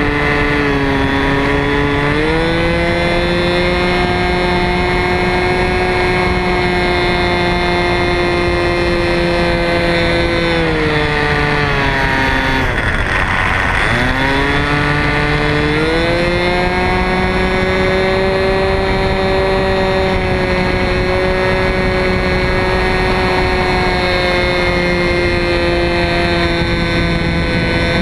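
The two-stroke glow engine of an RC Telemaster model plane runs in flight, heard close up from a camera on the airframe. Its pitch sinks from about ten seconds in to a low point near thirteen seconds, then climbs back within a few seconds and holds steady.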